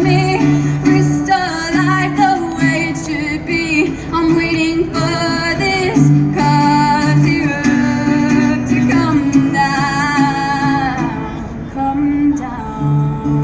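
A song: sung vocals over steady instrumental accompaniment, the singing dropping away near the end while the instruments play on.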